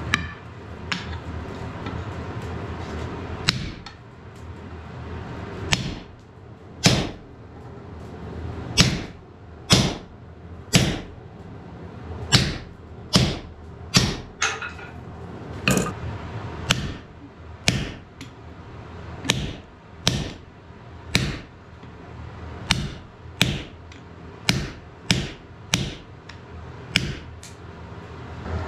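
Hammer blows on a handled top tool set on a red-hot wrought iron bar over the anvil, each a sharp metallic strike with a brief ring. The blows come irregularly at first, then settle to about one a second. A steady rushing noise underlies the first few seconds and stops about four seconds in.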